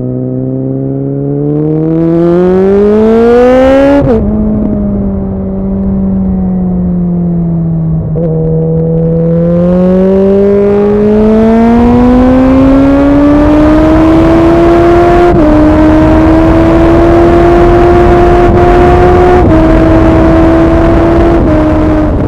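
Suzuki Bandit 650's inline-four engine through a MIVV aftermarket exhaust, accelerating hard with the revs climbing and an upshift about four seconds in. The note then sags, picks up again for a long pull through the gear, with another shift about two-thirds of the way through and small dips near the end.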